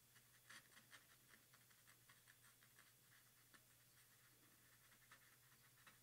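Faint scratching and small irregular ticks of a brush pen's tip dabbing and stroking on card, over a low steady hum.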